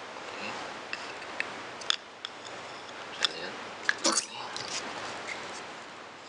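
Handling noise from a circuit board and a transformer's wire leads being moved about by hand: soft rustling with scattered small clicks and taps, and a cluster of louder clicks about four seconds in.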